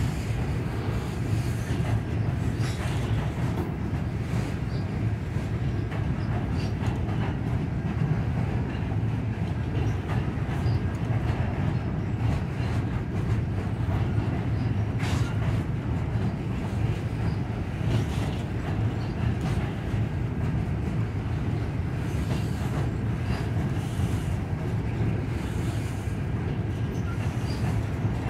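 Freight train rolling across a steel truss railroad bridge: a steady low rumble of passing cars with scattered clanks.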